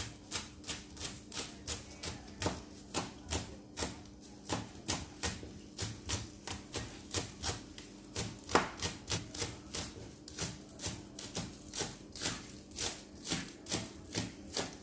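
Kitchen knife chopping spring onions on a plastic cutting board, a steady run of sharp taps about three a second.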